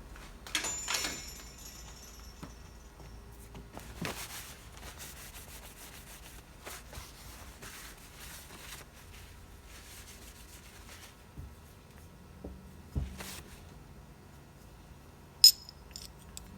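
Small metal parts clinking and knocking as they are handled and set down on a hard surface, with a few sharp ringing clinks; the loudest comes near the end.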